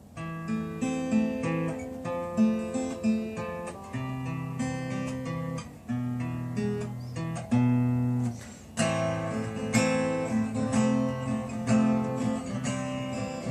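Acoustic guitar playing a song's introduction: picked notes and chords, turning louder and busier, with more strumming, about nine seconds in.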